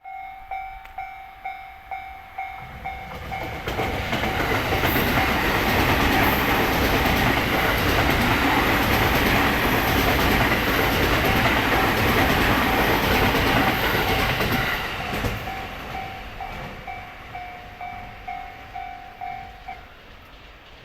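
A Japanese level-crossing warning bell rings in steady pulses, about two a second. A few seconds in, a Sobu Rapid Line train passes with a loud rush of running noise that drowns the bell for about ten seconds and then fades. The bell is heard again as the train goes and stops near the end.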